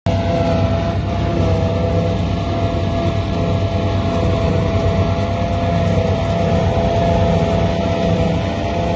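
Case International 7400 silage harvester running steadily at working speed: a deep engine drone with a steady whine held over it.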